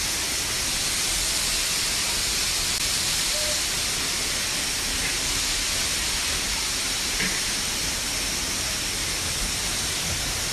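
Waterfall pouring onto rocks close by: a steady, even rush of falling water.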